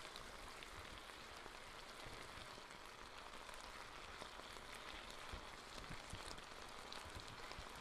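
Faint, steady sizzle and crackle of a vegetable stir fry simmering in its sauce in an electric skillet, with a few soft knocks from the stirring spoon in the second half.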